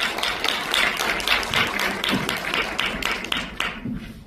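Audience applauding, dense clapping that dies away about four seconds in.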